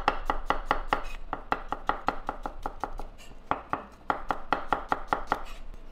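Chef's knife rapidly slicing garlic cloves on a wooden butcher-block cutting board: quick, even knife taps on the wood, about six a second, with a brief lull about three seconds in.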